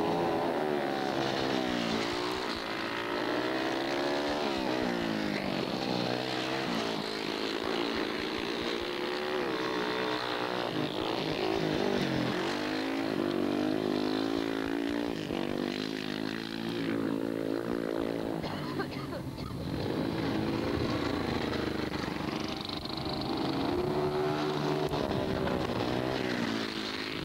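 Dirt-track racing motorcycles racing past, their engines revving up and down again and again as the riders slide through the bends.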